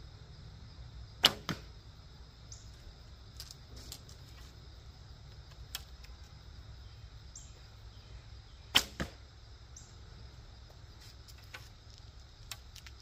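Two shots from a Sanlida traditional longbow, about seven and a half seconds apart: each a sharp snap of the string on release, followed about a quarter second later by a softer smack of the arrow striking the target.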